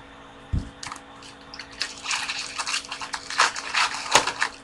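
Baseball cards and their pack wrapper being handled: a single knock about half a second in, then quick crackling and rustling for the last few seconds.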